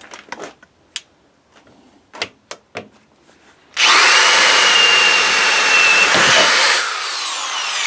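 Power drill boring through wood with an Irwin Speedbor spade bit. After a few light handling clicks, the drill starts suddenly about four seconds in, running at full speed with a steady whine as the bit cuts. Near the end it is let off and the motor winds down with a falling whine.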